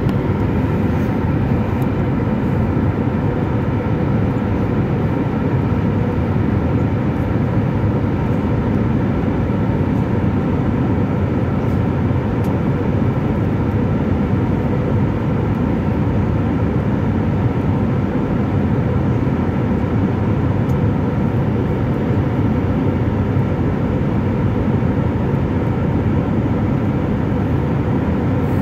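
Steady cabin noise of an airliner in its climb: the underwing turbofan engine running at climb power with rushing airflow, mostly low and even, with a few faint steady tones above it.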